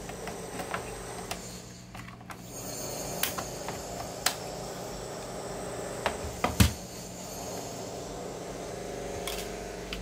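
Light clicks and knocks from the metal chassis and front panel of a homemade one-transistor regenerative radio being handled and fitted together, the loudest a thump about six and a half seconds in, over a steady hum.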